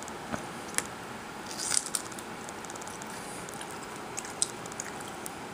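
Crisp starfruit being chewed: scattered small clicks and one short crunch a little under two seconds in, over a steady room hiss.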